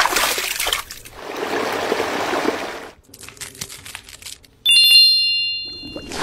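Sound effects: a watery, trickling rush for the first few seconds, then light scattered clicks, then a bright bell-like chime that rings out.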